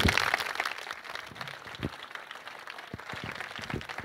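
Audience applauding, loudest at the start and thinning out to scattered clapping over the next few seconds.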